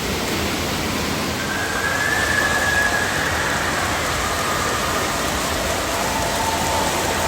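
Steady hiss of rushing, falling water, with faint distant voices or calls drifting through it.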